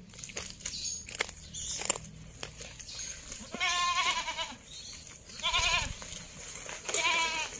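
Goats bleating three times, each call a short, quavering, high bleat. Faint clicks and rustles come before the first call.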